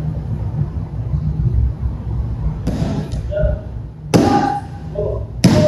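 Aikido breakfalls on the dojo mat: three thuds of bodies landing, about a second and a half apart, the last two the loudest.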